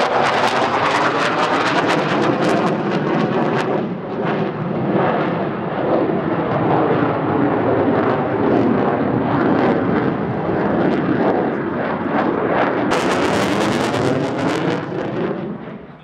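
Twin Klimov RD-33 turbofan engines of a MiG-29 fighter jet running at display power as the jet maneuvers overhead: loud, crackling jet noise that fades away near the end.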